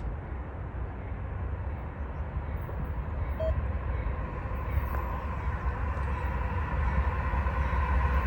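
Approaching CSX freight train led by diesel locomotive #7320: a low rumble that grows steadily louder, with wind buffeting the microphone. In the second half a distant locomotive horn chord begins to sound.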